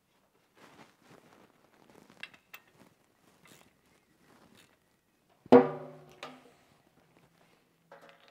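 Hand tools working the drain plug of a Suzuki Jimny's differential: faint light clicks, then about five and a half seconds in one loud metallic clank that rings briefly, followed by a smaller knock.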